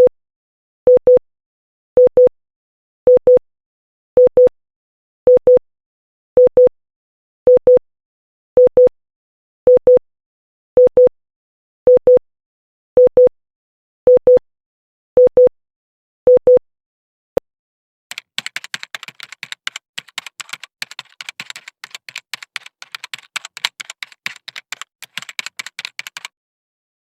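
Morse code letter "i" sent as a steady tone of about 500 Hz: two short dits, repeated about once a second. About two-thirds of the way through the tones stop, and after a single click a rapid, irregular clatter of clicks like typing runs for about eight seconds.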